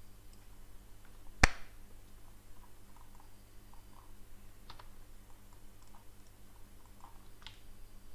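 Clicks of a computer keyboard and mouse: one sharp, loud click about a second and a half in, then a few fainter clicks and ticks, over a low steady hum.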